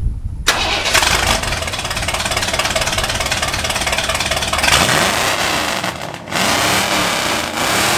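Ford F-150 V8 with long-tube headers and true dual straight pipes and no catalytic converters, starting up: it catches abruptly about half a second in and is revved hard, very loud, with the throttle let off briefly twice near the end.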